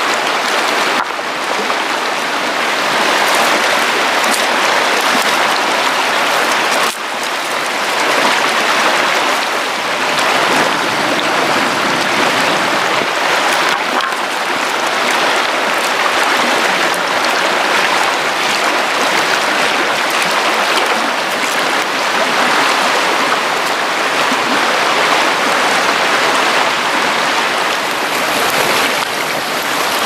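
Mountain stream rushing over rocks: a loud, steady hiss and splash of flowing water, with a short dip in level about a quarter of the way in.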